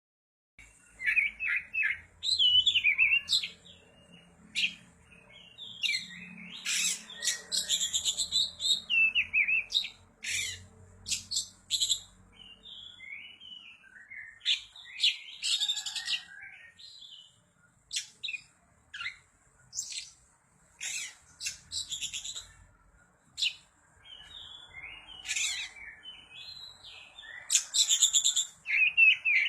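Oriental magpie-robin singing a varied song of whistles, chirps and sharp notes, in short phrases with brief pauses.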